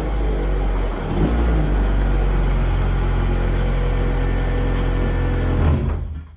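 Car engine running at a steady pitch, with a brief dip and change in revs about a second in; the sound cuts off abruptly near the end.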